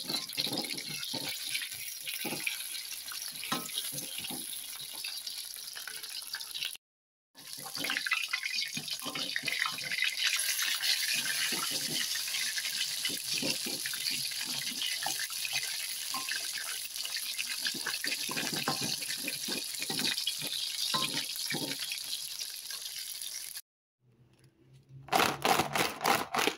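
Chicken pieces frying in hot oil in a wok, a steady sizzle with a metal spatula scraping and knocking against the pan as they are turned. The sound cuts out briefly about seven seconds in; near the end the sizzle stops and a short run of loud clatters follows.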